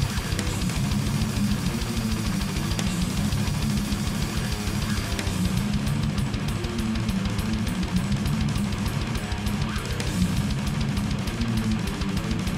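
Heavily distorted seven-string Ibanez RG guitar riffing in palm-muted chugs, driven through a Blackhawk Morgul Drive pedal into a Kemper profile of a Dual Rectifier amp, over a metal drum track with rapid kick drum.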